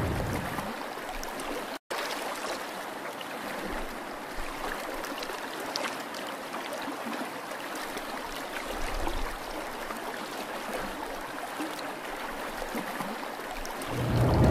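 Water trickling and gurgling around a sinking cardboard model ship, steady, with faint scattered pops.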